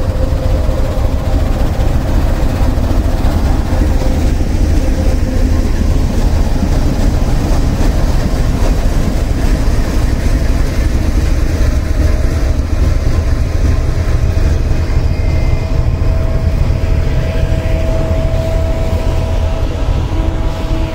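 GEU40 diesel-electric locomotive's engine running close by: a loud, steady deep rumble with a steady whine on top that grows a little stronger near the end.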